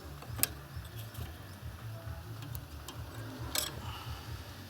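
A few light clicks of metal engine parts being handled, one sharper click about three and a half seconds in, over a low steady hum.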